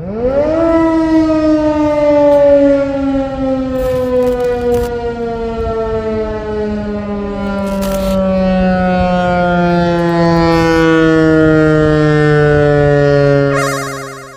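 Federal Signal Modulator 8032B electronic outdoor warning siren sounding: its tone sweeps up quickly within the first second, then slides slowly and steadily down in pitch, winding down, and fades out near the end.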